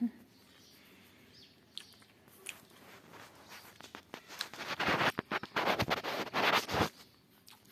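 Close rustling and scratching of blanket and fur as hands handle a mother rabbit, with a few faint clicks early on and then a dense run of rustles from about halfway through that stops shortly before the end.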